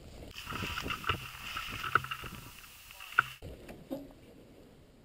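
Soft footsteps and scuffs on weathered wooden boards, with dry grass and gear rustling, as a player creeps forward with a rifle. A patch of hiss starts about half a second in and cuts off abruptly about three seconds later.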